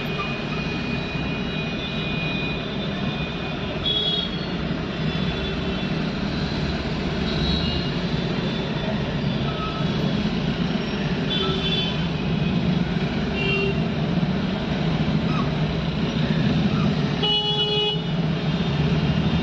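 Stop-and-go city street traffic: a steady rumble of car, truck and motorcycle engines in a jam, with horns tooting briefly about five times, the longest blast near the end.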